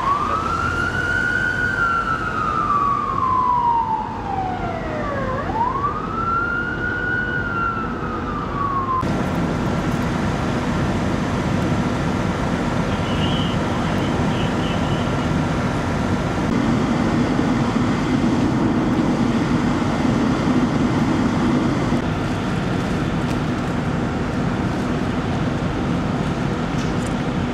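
Ambulance siren wailing in slow rising and falling sweeps, about two cycles, then cut off abruptly about nine seconds in. After that comes a steady low rumble of idling emergency-vehicle engines with a faint steady tone.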